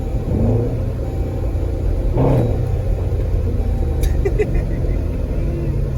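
Dodge Durango's 5.7 Hemi V8 running through aftermarket AFE shorty headers, a steady low exhaust rumble with one brief rev about two seconds in.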